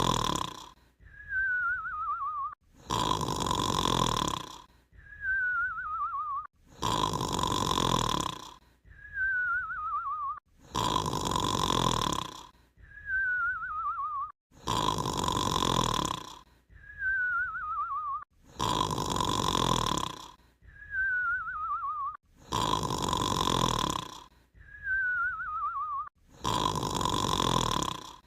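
Snoring: a loud rasping in-breath followed by a wavering whistle that falls in pitch on the out-breath. The cycle repeats evenly about every four seconds, seven times over.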